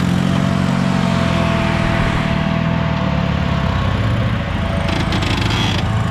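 Engine of a Suzuki-based off-road prototype buggy running loud and steady, its note changing about two seconds in as the revs shift. A short run of sharp clicks comes near the end.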